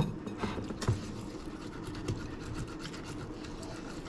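Half a lemon rubbed back and forth over the skin of a raw palometa on a ceramic plate: a steady wet scrubbing made of many small scrapes.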